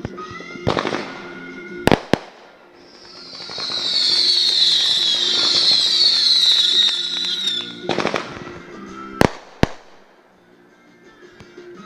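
Consumer fireworks going off: several sharp bangs, then about five seconds of a dense, high crackling hiss full of short falling tones, then more sharp bangs. Music plays faintly underneath.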